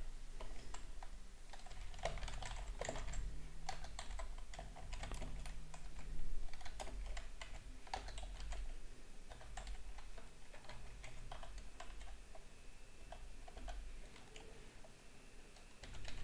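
Typing on a computer keyboard: irregular key clicks, in quick runs with short pauses between, thinning out in the second half.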